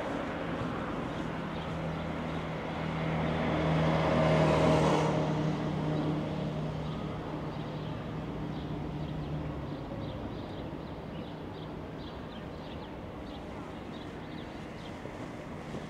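Street traffic: a motor vehicle's engine hum swells about four seconds in and fades away by about ten seconds. After that, faint footsteps on pavement tick about twice a second.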